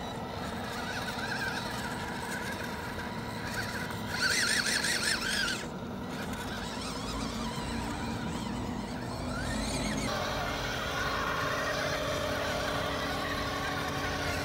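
Electric motors and gearboxes of small scale RC crawler trucks whining steadily as they climb a rocky mud slope. A louder high-pitched squeal comes about four seconds in, and the pitch rises shortly before a change in the sound near the end.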